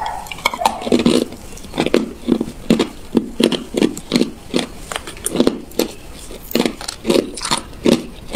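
Hard ice cubes crunching between teeth as they are chewed, a steady run of crunches about two to three a second with sharp cracking clicks.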